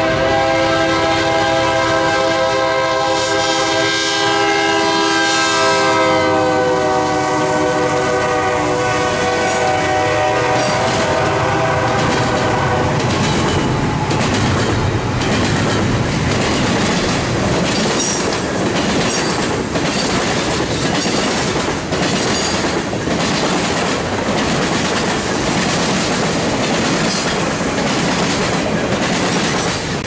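Freight locomotive's multi-chime air horn sounding one long blast that drops in pitch as the engine passes and fades out a little under halfway through. Freight cars then roll by with a rhythmic clickety-clack of wheels over the rail joints.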